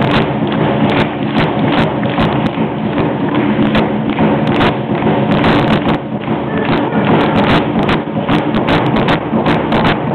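Ceremonial dance percussion: a steady beat on large upright wooden drums under a dense clatter of many sharp clicks from the dancers' rattles.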